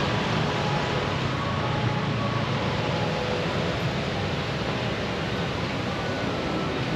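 Steady outdoor city background noise: a constant dull hum of road traffic, with faint scattered higher sounds over it.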